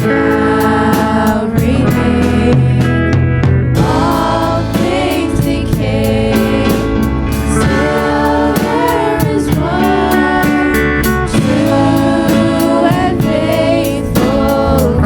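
Worship band playing a contemporary Christian song, with singing over sustained chords and a steady drum beat.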